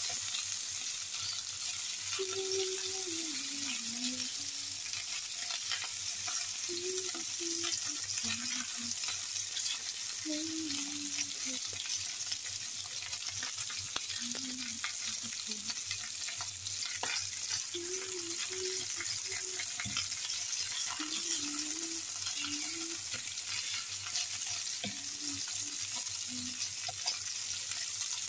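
Bone-in meat chops sizzling steadily in a hot nonstick frying pan, with now and then a click of metal tongs against the pan as they are turned.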